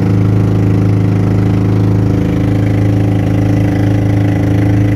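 Engine of a motorized outrigger fishing boat (bangka) running steadily at one speed while underway, with a loud, unchanging hum and water splashing off the hull.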